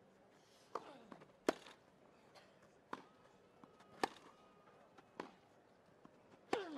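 Tennis rally on a grass court: the ball is struck back and forth with rackets, a sharp crack every second or so. A player's grunt falls in pitch on two of the shots.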